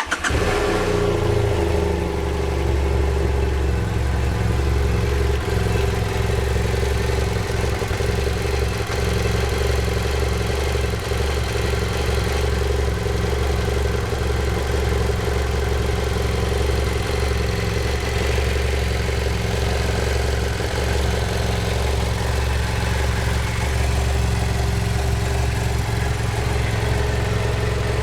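2010 BMW F800GS's Rotax-built 798 cc parallel-twin engine starting and then idling steadily, with a noise that the owner suspects is valve clatter or piston slap.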